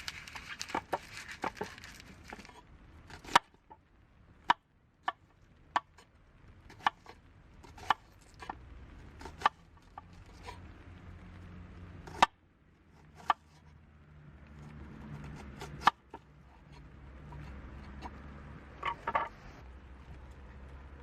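A series of sharp, irregular clicks and taps, roughly one a second. A faint low hum comes in about two-thirds of the way through.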